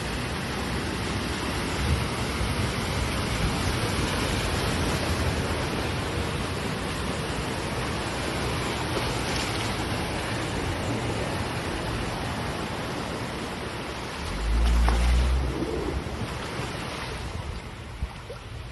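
Steady rushing noise of wind and water from a tropical storm. About fifteen seconds in, a brief gust buffets the microphone with a low rumble.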